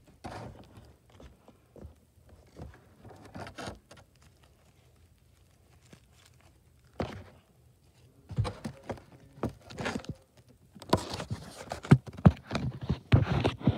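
Handling noise: scattered taps, thumps and rustles as the recording phone and plush toys are moved about, sparse at first and busier and louder over the last few seconds.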